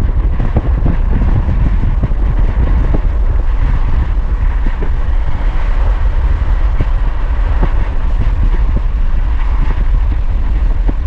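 Moving car heard from inside the cabin: a steady low road rumble with a constant hiss of tyre and wind noise, and scattered light ticks.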